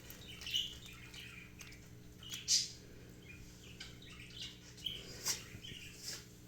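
A small bird chirping faintly in short calls every second or so, with a few light clicks and taps and a low steady hum underneath.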